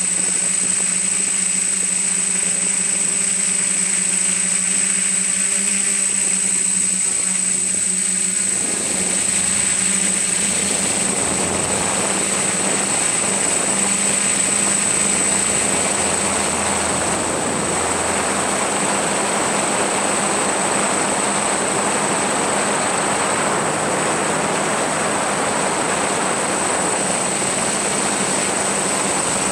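Motors and propellers of a small remote-controlled aircraft, heard from its own onboard camera: a steady hum with a constant high whine. About eight seconds in, a louder rushing noise sets in and stays.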